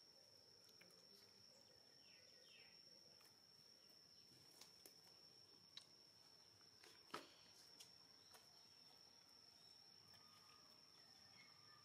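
Near silence: a faint, steady, high-pitched insect drone, with a few soft clicks, the sharpest about seven seconds in.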